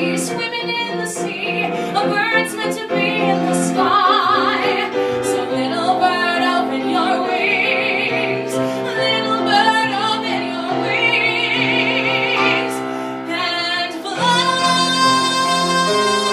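Song with a woman singing wordless high operatic runs with wide vibrato over instrumental accompaniment; about fourteen seconds in, a long steady held note takes over.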